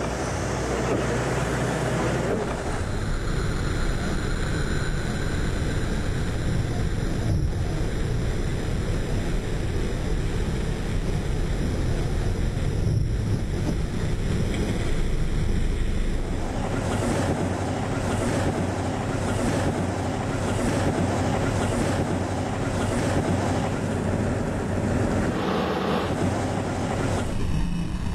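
Steady rushing noise of a car driving through rain, heard from inside the cabin: wet tyres on the road and rain on the windshield. The sound changes character about two seconds in and again about halfway through.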